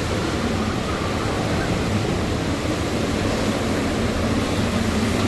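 Hurricane eyewall wind blowing in a loud, unbroken rush with a heavy low rumble, gusting easily over 100 mph by the filmer's estimate.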